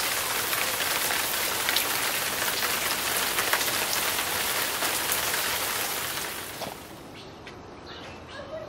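Water from a plastic watering can pattering onto soil and dry leaves: a steady hiss of many small drops that falls away sharply about seven seconds in.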